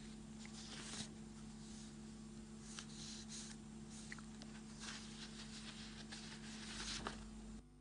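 Faint background noise with a steady low hum and a few soft scattered clicks and rustles.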